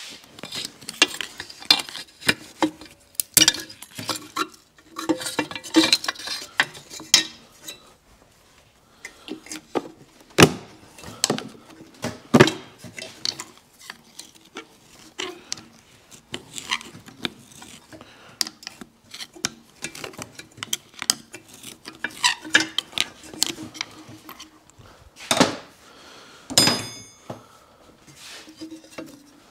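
Hand tools and metal engine parts clinking and clanking during an engine teardown, a scatter of short sharp knocks and clicks, with one ringing metallic strike near the end.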